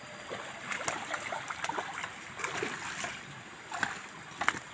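A hooked fish splashing at the pond surface as it is reeled in and lifted out: a string of short, irregular splashes, with two sharper ones near the end.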